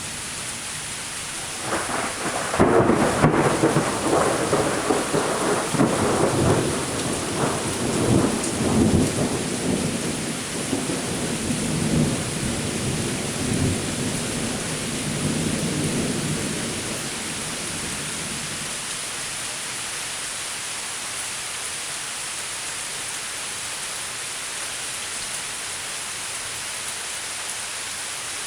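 Steady rain with a long roll of thunder. The thunder breaks about two seconds in and is loudest over the next couple of seconds, then rumbles on and dies away after about eighteen seconds, leaving only the hiss of the rain.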